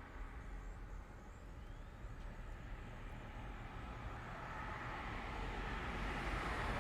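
Street traffic on a one-way street: a low rumble of cars, with one car approaching and growing steadily louder through the second half.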